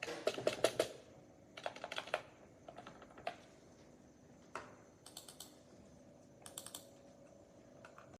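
Typing on a wireless keyboard with vintage-style round keycaps: quick runs of key clicks, the first run the loudest, broken by short pauses and a lone keystroke about halfway through.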